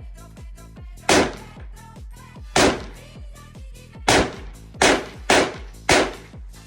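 Six shots from a PTR G3-pattern .308 semi-automatic rifle: the first about a second in, two more at roughly one-and-a-half-second gaps, then three in quicker succession near the end. Background music with a steady beat plays underneath.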